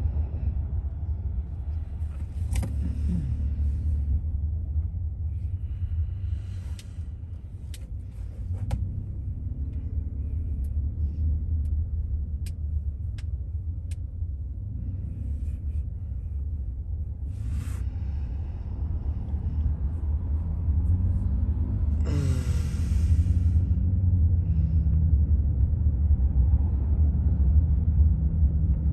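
Steady low road and engine rumble inside a car's cabin at highway speed, with a few faint ticks in the middle and a short burst of hiss about three-quarters of the way through.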